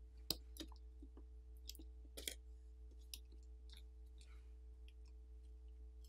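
Faint, scattered clicks and taps as a smartphone's main board is pried up with a plastic pry tool and lifted out by hand, over a faint steady hum.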